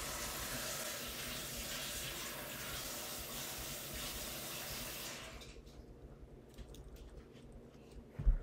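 A steady rushing noise, like running water, for about five seconds that then stops. Soft computer-keyboard clicks follow, and a short low thump comes near the end.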